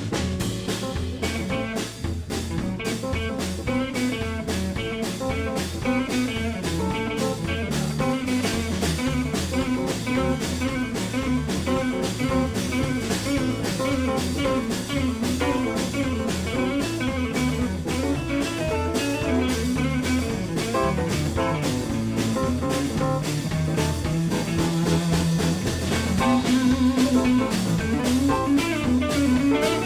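Live blues band playing an instrumental passage without vocals: electric guitar, bass, keys and drum kit keeping a steady beat.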